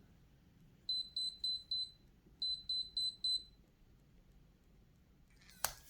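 Electronic beeps from a fingerprint trigger lock: two quick runs of about five short, high beeps each, then a sharp click near the end.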